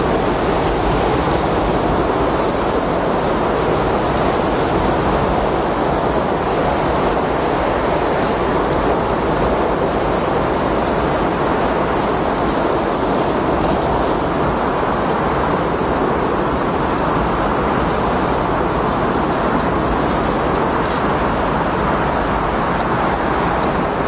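Windstorm sound: a steady rush of wind, even in level with no gusts rising or falling.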